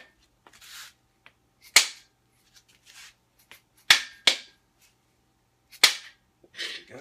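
A soft-faced mallet knocking on an engine's main bearing caps to work them loose up over their studs. About four sharp blows spaced a second or two apart, with lighter taps between.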